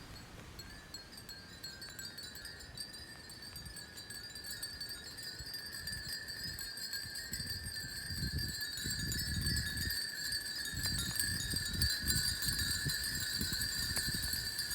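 Many Japanese furin wind chimes tinkling together in a steady, ringing shimmer that swells as the wind picks up. From about halfway, low gusts of wind buffet the microphone.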